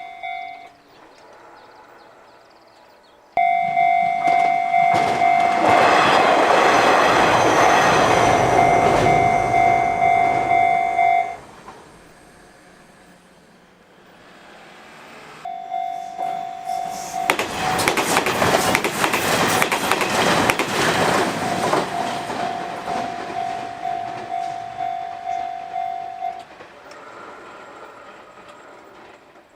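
Japanese railroad-crossing warning bell ringing "kan-kan", about two strikes a second, cutting in abruptly twice. Each time a train passes over the crossing while it rings, with wheels rumbling and clattering on the rails. The bell stops suddenly before each quieter gap.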